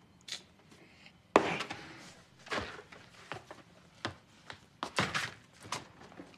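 Kitchen handling sounds: a sharp thunk about a second and a half in, then scattered lighter knocks and clicks as a plastic cereal bowl is carried, set down on a counter and the refrigerator door is opened.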